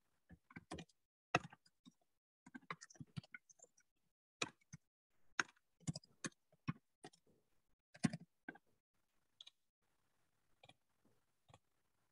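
Faint, irregular clicks and light knocks, a dozen or so, some with a dull low thud, like handling noise at a desk near the microphone.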